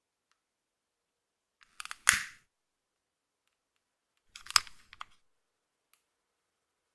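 Gas click lighter with piezo ignition being clicked twice, about two and a half seconds apart. Each press is a few small clicks leading to one sharp, loud snap, and the first snap has a brief tail. A faint tick follows near the end.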